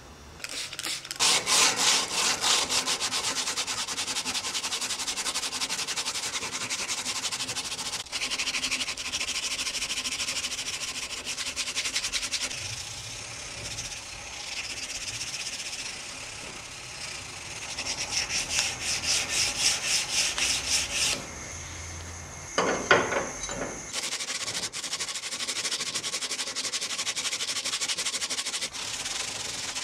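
Hand sanding of a cast iron clothes iron clamped in a bench vise: abrasive paper scraped over the metal in rapid back-and-forth strokes, starting about a second in, with a short break and a louder scrape about three-quarters of the way through.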